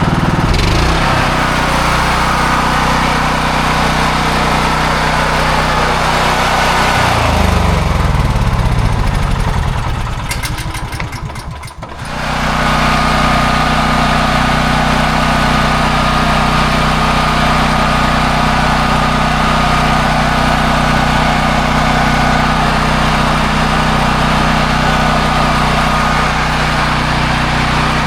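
Honda EB5000X generator's engine running steadily. About seven seconds in its pitch falls as it slows and the sound nearly dies away, then steady running resumes abruptly at a slightly different pitch.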